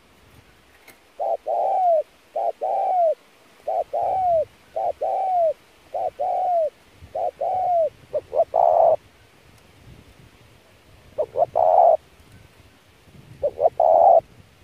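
Spotted dove cooing: six quick two-part coos about a second apart, each a short note followed by a longer falling one. Then, in the second half, three fuller, rougher coos, each led in by a couple of quick short notes.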